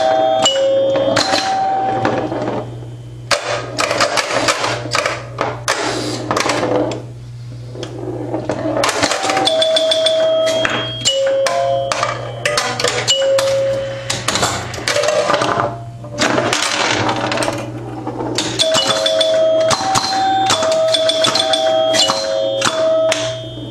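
A 1974 Bally Champ electromechanical pinball machine in play. Its score chimes ring again and again in a few different pitches over fast clicking and clattering from relays, stepper units and score reels, with a steady low hum underneath.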